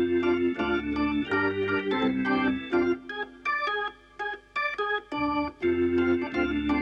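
Organ music playing a bouncy melody over a bass line; the bass drops out about three seconds in and comes back about two and a half seconds later.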